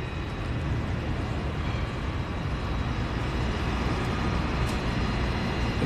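Steady low rumbling background noise with a faint hiss, growing slightly louder, with no distinct events.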